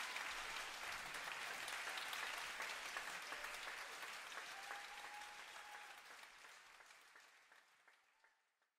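Theatre audience applauding, a dense patter of many hands clapping, fading away to silence over the last few seconds.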